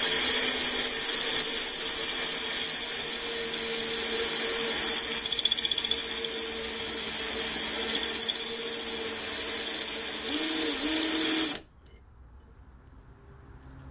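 Electric drill spinning a diamond-tipped hole cutter into a thick glass bottle: a steady motor whine under a high, wavering grinding hiss of the bit on glass. The pitch wobbles briefly and the drill stops suddenly about two seconds before the end.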